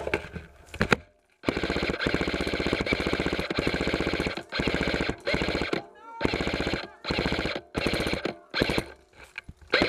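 An airsoft gun firing on full-auto: one long burst of rapid shots lasting about two seconds, then a string of short bursts.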